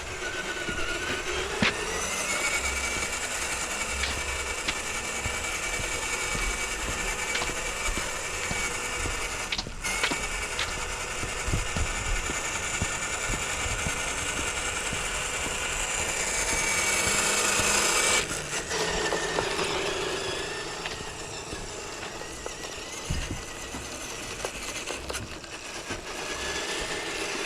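Electric motor and gear whine of a radio-controlled scale truck driving. The whine climbs in pitch and gets louder about two thirds of the way through, then drops off abruptly and carries on lower and quieter.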